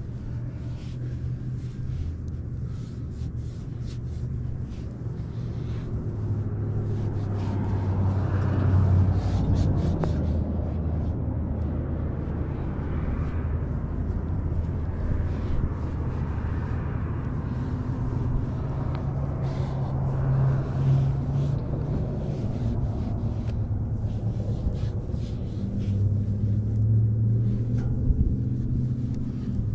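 A vehicle engine's low rumble, steady but swelling louder about eight seconds in and again near the end.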